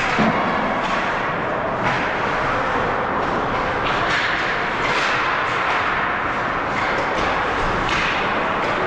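Ice hockey game play in a rink: a steady scraping hiss of skates on ice, broken now and then by sharp clacks of sticks and puck.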